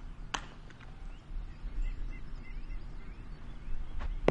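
Wind rumbling on the microphone, with a sharp smack of the baseball about a third of a second in and two more near the end, the last one loudest. Faint bird chirps in between.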